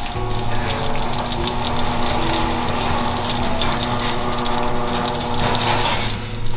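Sweet potato pudding bubbling and sizzling in its baking tin in the oven, a busy, irregular crackle, under background music with steady held low notes.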